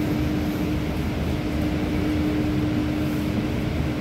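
Interior of a Stadler B85600M tram standing still, its onboard equipment humming steadily: one held tone over a low, even rumble.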